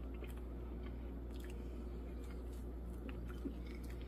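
Faint, scattered clicks and soft scraping of a metal spoon in a ceramic bowl of soft trifle, over a steady low hum.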